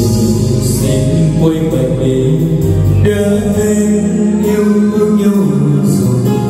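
Karaoke: a man singing into a microphone over a musical backing track, played loud through a home sound system.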